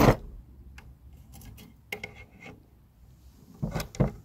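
Metal parts of a Type 81 rifle's gas system clicking and scraping as the gas piston and its spring are slid back into place, with a few light clicks about two seconds in and louder clacks near the end.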